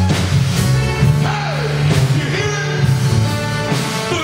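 Live gospel praise band playing: electric bass holding sustained low notes under drum-kit hits and keyboard, with a singing voice that slides down in pitch about a second and a half in.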